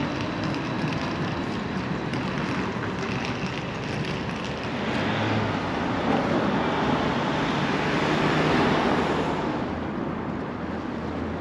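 Wind buffeting the microphone over steady outdoor background noise. It is a continuous rush that swells a little in the middle.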